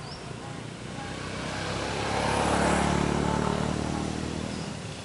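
A motor vehicle passing on the road, its engine growing louder to a peak about two and a half seconds in, then fading away.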